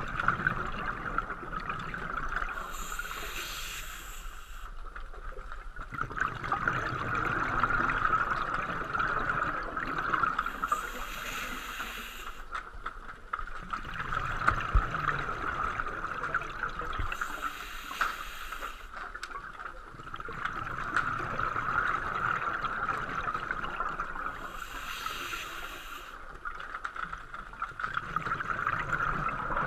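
Scuba diver breathing through a regulator underwater: a burst of exhaled bubbles about every seven seconds, four times, with a steady hiss between.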